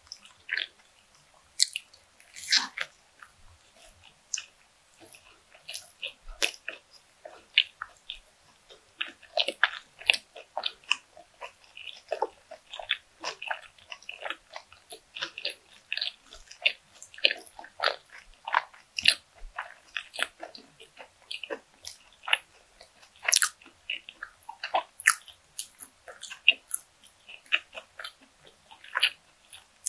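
Close-miked chewing and biting of a breaded, deep-fried croquette: a steady stream of small, crisp crackles and clicks.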